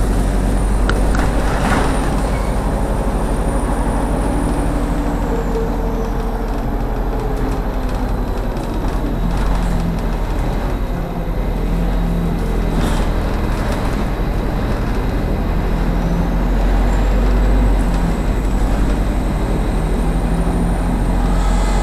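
Cabin noise of a MAZ diesel city bus under way: a steady engine rumble and road noise.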